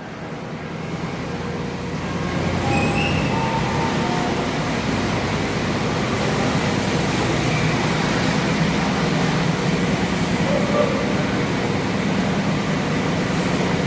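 Diesel engine of a large coach bus pulling under load as it drives forward up the ferry ramp, growing louder over the first two or three seconds and then holding a steady drone.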